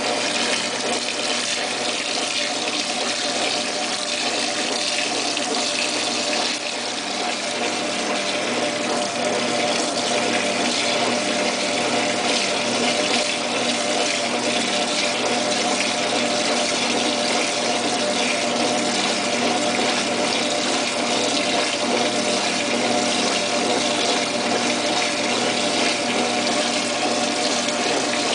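Washing machine running its wash cycle: a steady rush of water in the tub over a steady motor hum, growing a little louder about nine seconds in.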